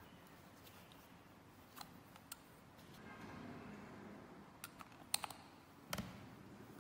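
Small metal lipstick-style pepper spray being handled: faint rubbing as the metal outer sleeve slides off and back onto the glass vial, with several small clicks and a sharper knock about six seconds in as the sleeve is pushed home.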